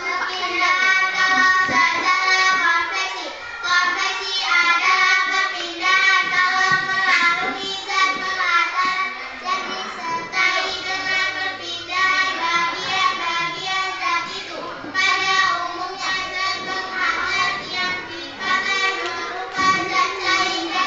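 Children singing a song, with held, melodic notes.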